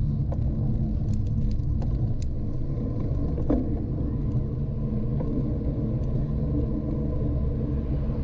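Steady wind rumble on the microphone and tyre noise from a road bike riding at speed, with a few faint clicks about a second in.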